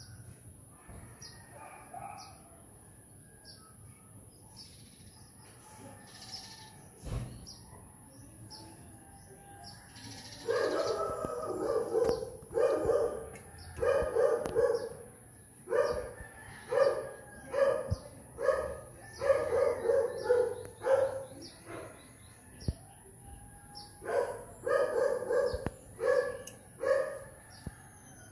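A dog barking over and over in runs of several barks, starting about a third of the way in. Before that, small birds chirp faintly.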